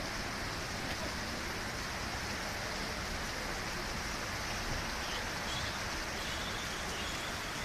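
Heavy rain and running floodwater: a steady, even rush of water.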